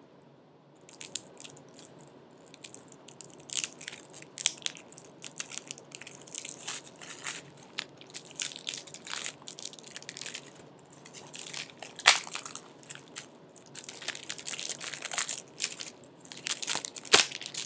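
Plastic shrink wrap being torn and crumpled off a Blu-ray case: irregular crinkling crackles, with a couple of louder sharp clicks.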